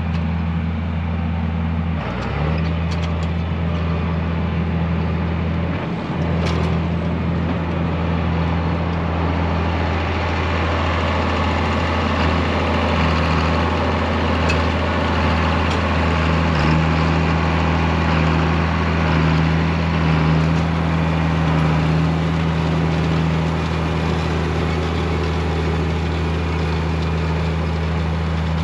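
John Deere 4960 tractor's six-cylinder diesel engine running steadily while pulling a planter, a constant low hum.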